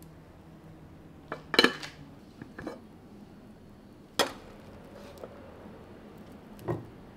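Rice paddle knocking and scraping against a rice cooker's inner pot and a ceramic bowl as cooked rice is stirred and scooped out: a handful of scattered clinks and knocks, the sharpest about a second and a half in and just after four seconds.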